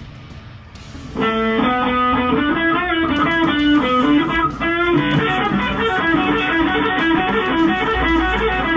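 Electric guitar music, starting loud about a second in after a quieter stretch.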